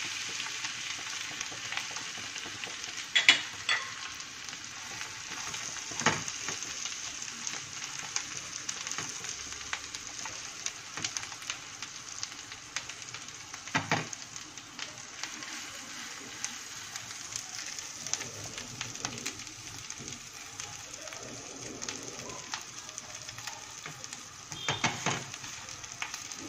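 Butter and oil sizzling on a hot tawa over a low gas flame as pav bread rolls toast in spiced butter: a steady hiss with fine crackling. A few short knocks stand out, about three and six seconds in, around the middle and near the end.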